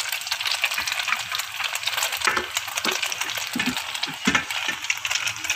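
Oil sizzling and crackling in a frying pan, with several metal clinks and knocks of a pot lid and utensils around the middle.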